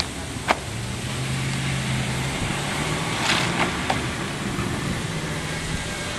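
A vehicle engine running nearby with a low steady hum that shifts up in pitch about two and a half seconds in, over wind noise on the microphone. A sharp click about half a second in is the loudest sound, with a brief rush of noise and two lighter clicks near four seconds.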